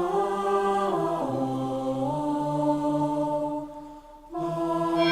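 Background music of sustained choir-like voices holding long chords that step to new pitches every second or so, fading briefly about four seconds in before the next chord enters.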